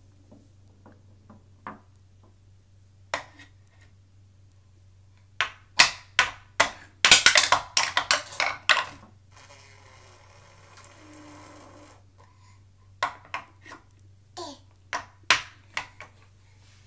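A toy hammer knocking on a pound-a-ball toy, with balls being hit down through it. A quick run of loud knocks comes about six to nine seconds in, then a steady rattle for a couple of seconds, then a few more knocks.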